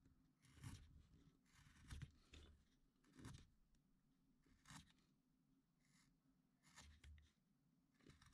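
Faint scraping cuts of a small carving blade paring thin slivers from a wooden figure: several short strokes at irregular intervals.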